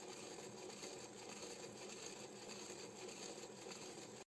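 Faint, steady whir of a geared NEMA 17 stepper motor and hobby servos driving a 3D-printed mirror-scanning LIDAR mechanism through a fast low-resolution scan.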